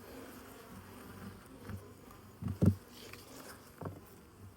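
Honeybees buzzing steadily around an open hive during an inspection. A few knocks from frames and tools being handled come through, the loudest about halfway.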